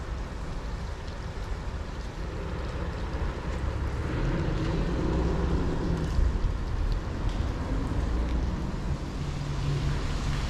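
Steady low rumble of traffic crossing the road bridge overhead, with a heavier vehicle hum swelling about four seconds in and again near the end.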